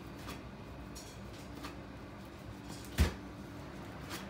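Sushi knife cutting spear squid on a wooden cutting board: a few light ticks of the blade against the board, then one sharp knock about three seconds in and another light tick near the end.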